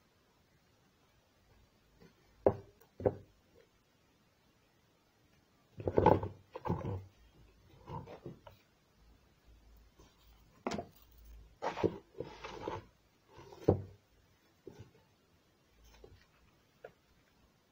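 Cardboard tissue box being handled and set down: a series of dull knocks with short rustles, the sharpest two knocks about two and a half and three seconds in, then a cluster of knocks and rustling from about six seconds on.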